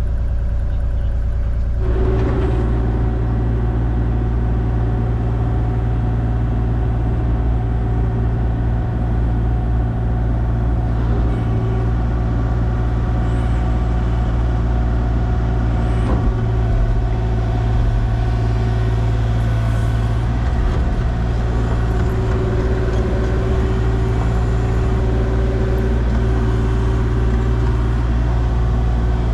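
Engine of a piece of earthmoving equipment running steadily, its note changing about two seconds in.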